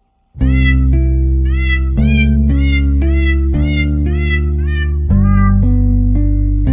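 Background music: a steady bass line with a short meow-like call repeated on the beat, about twice a second, as part of the tune.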